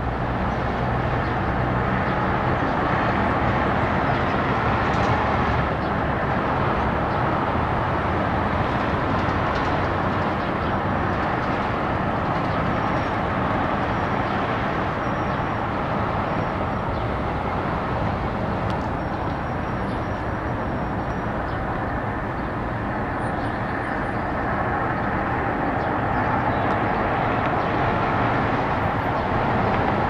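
Steady hum of distant vehicle traffic, with a few faint, short, high bird notes in the middle.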